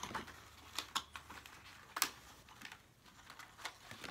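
A few sharp, irregularly spaced clicks and taps from Barbie clothing packs being handled and opened.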